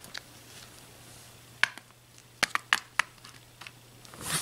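Plastic Breyer model horse's hooves tapping on a hardwood floor as it is walked by hand: a few scattered sharp taps, over a low steady hum, with a brief rustle near the end.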